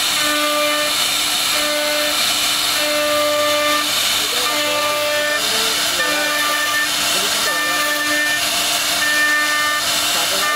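CNC router spindle whining at a steady pitch as its bit cuts a relief into a wooden panel, over a constant hiss of cutting. The upper tones of the whine break off and shift every second or so as the cutter moves along its path.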